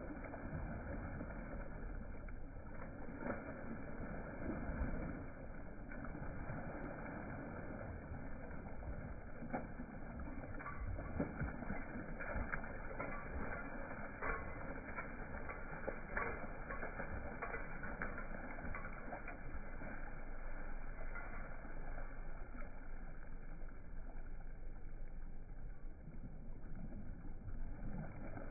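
A Newfoundland dog wading and shaking itself off in a shallow river, with the sloshing and spattering water slowed down several times. It comes out as a deep, muffled wash of water with scattered small pattering ticks.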